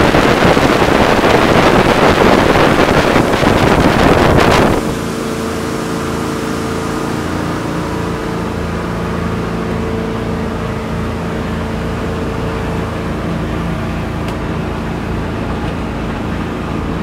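Wind rushing hard over the microphone on the bow of a Bayliner 2459 Trophy motorboat running at speed. About five seconds in it cuts to inside the cabin: the boat's engine drones steadily, with hull and water noise beneath it.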